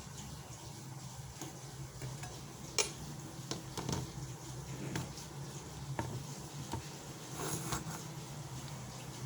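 Kitchen utensils clinking and scraping against dishware in a handful of irregular sharp knocks, over a steady low hum.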